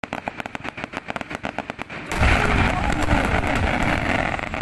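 A string of firecrackers going off: a rapid run of sharp pops for about two seconds, then a louder, denser barrage of bangs with a low booming underneath.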